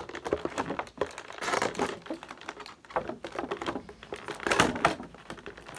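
Clear plastic toy packaging being handled, crinkling and clicking irregularly.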